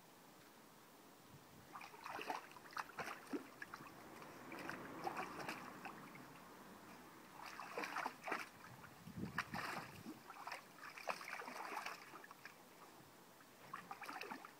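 Water splashing and sloshing as a dog wades and paws about in a shallow paddling pool. It comes in irregular bursts from about two seconds in, with a lull shortly before the end.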